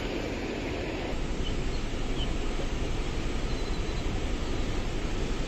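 Steady rushing roar of a fast mountain river flowing over rocks, growing a little louder about a second in.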